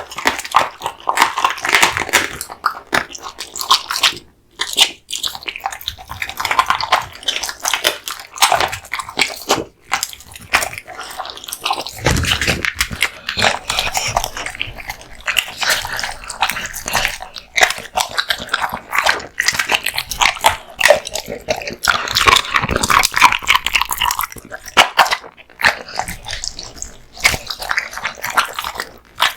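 An American Bully dog chewing raw meat and bones: a long run of quick wet crunches and cracks of bone between its teeth.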